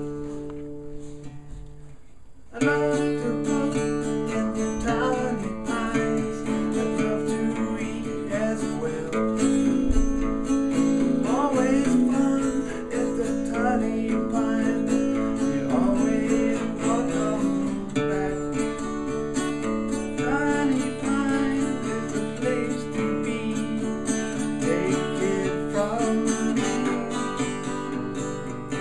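Acoustic guitar played by hand: a chord left ringing and fading for about the first two seconds, then steady strummed chords pick up again, loud, and carry on through.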